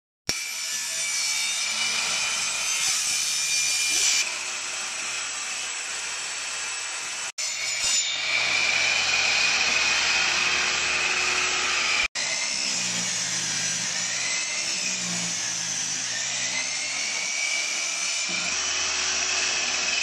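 Benchtop table saw running and cutting OSB board, a steady high whine over the noise of the cut, the pitch sagging and recovering as the blade works through the board. The sound drops out for an instant twice, about 7 and 12 seconds in.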